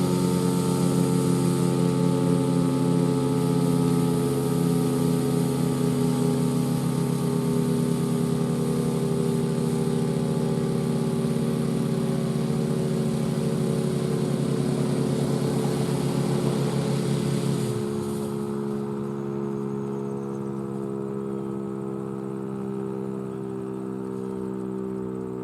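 Federal Signal STH-10 Thunderbolt outdoor warning siren sounding a steady chord of several tones, its pitch slowly falling as it winds down. About 18 s in, the lowest tones and the rushing hiss cut out suddenly, and the remaining tones carry on more quietly, still sinking.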